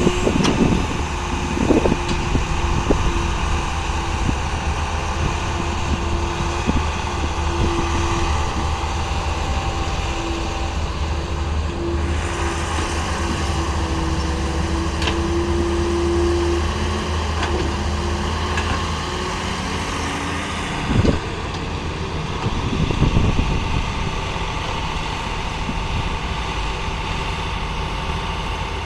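Caterpillar E70 hydraulic excavator working, its diesel engine running with a steady low drone and a whine over it for much of the time. A few knocks from the digging come near the start and again about two-thirds through.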